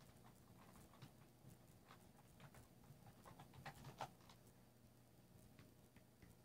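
Near silence with faint, irregular clicks of fingers tapping a phone's touchscreen keyboard, a couple of them slightly louder about four seconds in.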